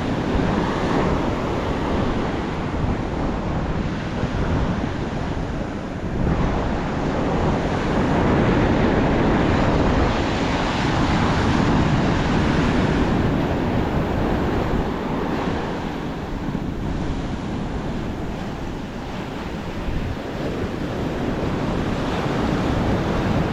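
Ocean surf washing onto a beach, mixed with wind buffeting the microphone; the wash swells and eases every several seconds.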